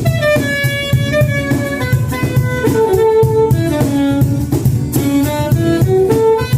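Band playing an instrumental break: a lead instrument carries a melody of held notes that step up and down, over drums and bass.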